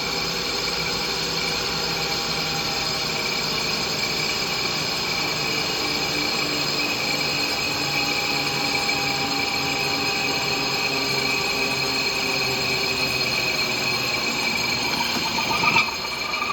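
Lathe cutting a light finishing pass across the friction face of a classic Mini clutch backplate at raised spindle speed under constant surface speed. It is a steady machine sound with high-pitched whining tones, and it drops away near the end as the cut finishes.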